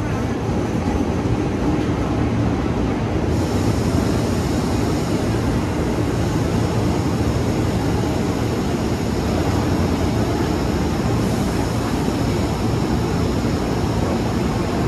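KAI Commuter 205-series electric multiple unit pulling into the station: a steady rumble and rattle of the cars running past on the track. Faint high tones join about three seconds in and grow stronger near the end as the train slows.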